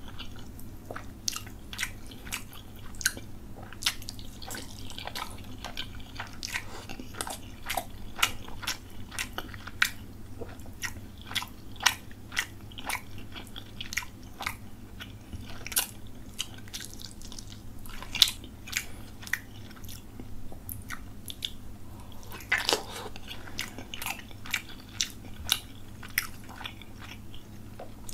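Close-miked mouth sounds of a person eating rice and fish curry by hand: irregular wet chewing, lip smacks and occasional crunches, with one longer drawn-out sound a little past two-thirds through, over a faint steady low hum.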